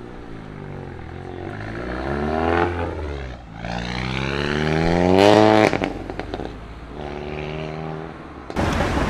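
A tuned Volkswagen-group car accelerating away. The engine note rises, drops at a gear change about three and a half seconds in, and climbs again to its loudest, then cuts off sharply with a few exhaust pops and crackles as the throttle lifts. A lower, steadier engine note follows, and a louder, noisy stretch starts suddenly near the end.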